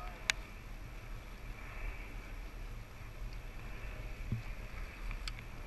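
Wind rumbling on the microphone with faint water lapping against a stopped rowing eight, and a sharp click about a third of a second in and another near the end.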